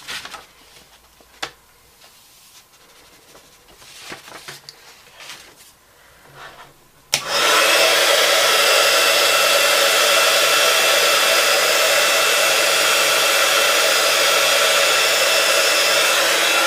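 Quiet paper handling with a few light knocks, then about seven seconds in an embossing heat gun clicks on and blows loudly and steadily with a faint high whine, melting embossing powder on an MDF shape.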